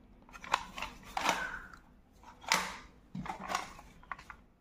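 Handling noise: several short bunches of light, sharp clicks and clatters from small hard objects being moved, with quiet gaps between them.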